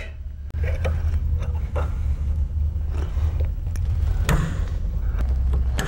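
Steady low rumble with a few faint small metallic clicks as a shotgun ejector spring is pressed into place in a fore end held in a vise. The sharpest click comes about four seconds in.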